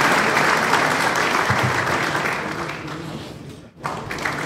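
Applause: dense steady clapping that fades about three seconds in, breaks off for an instant, then starts again at full strength just before the end.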